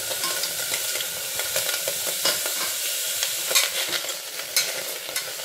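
A metal spoon scraping and clinking against the inside of a Pigeon pressure cooker as chopped carrot, sweet potato, tomato and garlic are tipped in and stirred, with sharp knocks about three and a half and four and a half seconds in. A steady hiss runs underneath.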